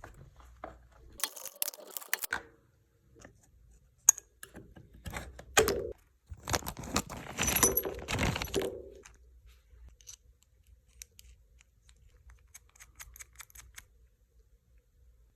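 Small metal parts and tools clicking and rattling as a Stihl chainsaw's chain tensioner is worked on: scattered clicks, a dense run of clattering a little past the middle, then faint light ticks.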